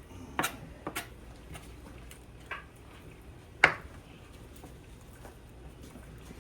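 A few sparse light clicks and knocks of kitchen handling while meat is pulled off a cooked chicken, the sharpest about three and a half seconds in.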